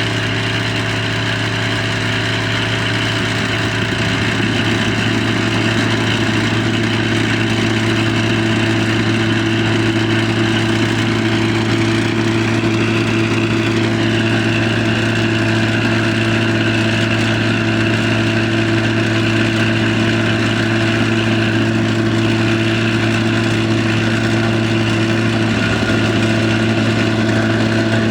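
A small engine running steadily at a constant speed, with a steady hum throughout.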